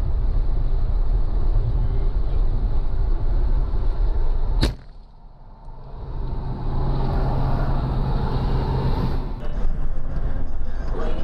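Steady road noise and low rumble inside a moving car. About four and a half seconds in comes a single sharp crack as the windshield is struck and shatters, and the level drops briefly before the road noise returns.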